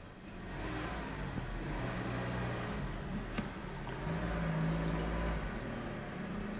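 A motor vehicle engine running, getting louder from about half a second in, with one sharp click a little past the middle.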